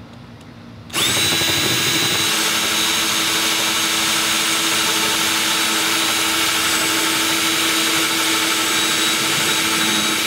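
Ryobi cordless drill running a step drill bit through a plastic motorcycle cowl, opening a mounting hole out to 14 mm. The drill starts about a second in and runs at a steady speed with an even whine, stopping right at the end.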